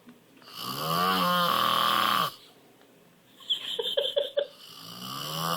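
A man snoring loudly: one long rattling snore about half a second in, then a few short clicking sounds, then the next snore building near the end. It is the heavy snoring of a man with sleep apnea who does not use his sleep apnea machine.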